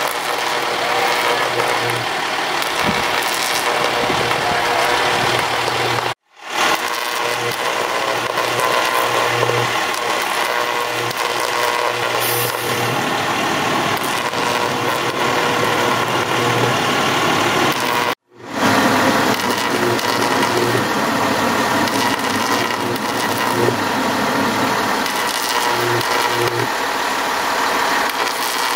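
Fire engine idling steadily. The sound cuts out briefly twice and fades back in.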